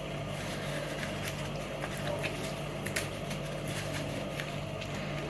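Faint handling sounds, a few soft clicks and rustles of paper tissue being pressed against a raw mullet to dry it between the gills, over a steady low hum.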